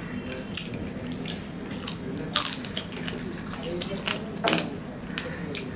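Close-up mouth sounds of people eating fried rice and fried chicken by hand: chewing with several sharp lip smacks, the loudest about two and a half seconds in and again near four and a half seconds.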